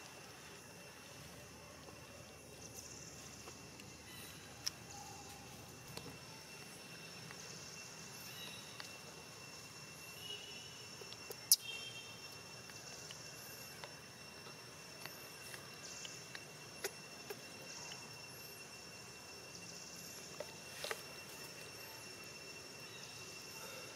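Insects droning steadily at a high pitch, with scattered small clicks and rustles and one sharp click about halfway through.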